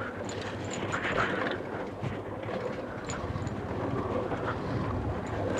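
Motorcycle engine running steadily on a ride, with wind on the microphone and a few small clicks and rattles.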